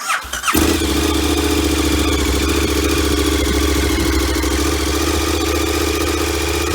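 KTM 1290 Super Adventure's 1301 cc V-twin on its standard exhaust, starting up and settling within about half a second into a steady idle.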